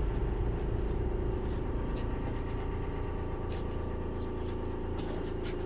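Small engine idling steadily, with a few faint light ticks.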